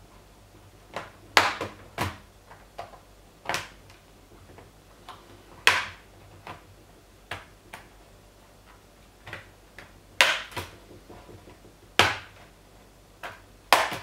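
Plastic snap clips of a Lenovo ThinkPad L450's bottom cover popping loose as the cover is pried off with a plastic tool. A dozen or so sharp clicks and snaps come at irregular intervals, a few much louder than the rest.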